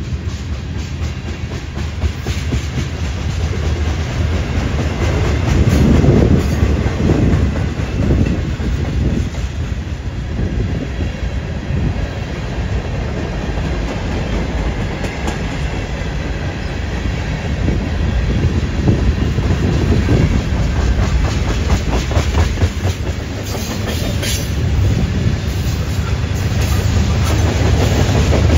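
Freight train rolling past, its wheels clacking steadily over the rail joints under a continuous rumble.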